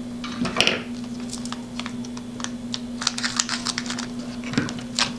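A small plastic bag crinkling and rustling as it is handled and opened, a string of irregular short crackles and clicks. A steady low hum runs underneath.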